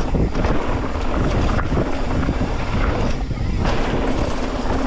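Wind rushing over the microphone as a mountain bike rolls fast down a rocky trail, with frequent small knocks and rattles from the tyres and bike on rock.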